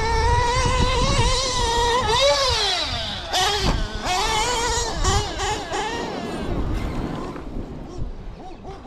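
Novarossi .28 two-stroke nitro engine of a 1/8-scale Losi 8ight XT truggy revving up and down at a high pitch under throttle, with one clear rev up and back down about two seconds in. It gets fainter over the second half as the truck runs farther off.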